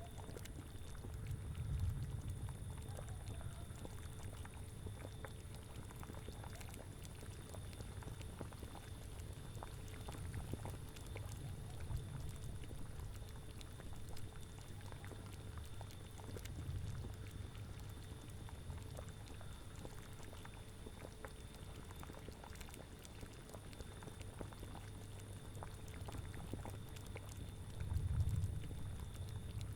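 Cauldron boiling, a thick liquid bubbling with many small pops, over a low rumble that swells several times and most strongly near the end. Faint steady high tones run underneath.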